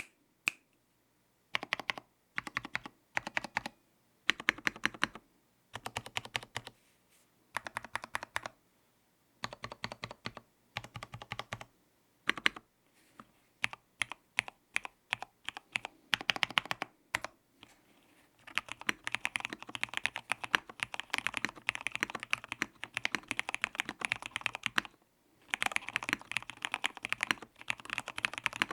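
Typing on a full-size mStone Groove F SF mechanical keyboard with Cherry Red linear switches spray-lubed with Super Lube and PBT Cherry-profile keycaps. Short runs of keystrokes with pauses between them give way, about two-thirds of the way in, to continuous fast typing.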